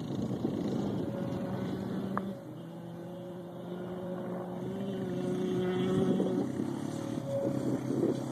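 Two-stroke dirt bike engine, the 2001 Yamaha YZ125, running at fairly steady revs out across the field. Its pitch steps about two seconds in, and it grows louder up to about six seconds in before easing off.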